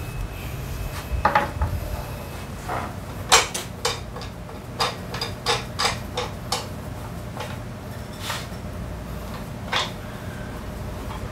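Small metal parts and hand tools clinking against each other and the concrete floor as they are handled. It is a string of irregular sharp clinks with a short ring, about a dozen of them.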